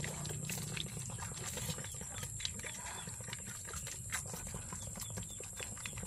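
Goat kids' hooves making irregular light clicks and knocks on the pen floor as they crowd round a milk bottle, over a low steady hum.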